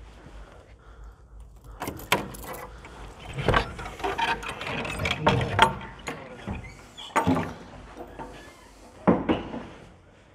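A run of rattling clicks and knocks from an old wooden door being unlatched and pushed open.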